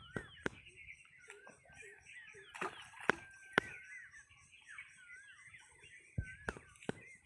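Small birds chirping and twittering in quick, curving high notes, with a scattering of sharp clicks or knocks, about eight in all, the loudest a little past the middle.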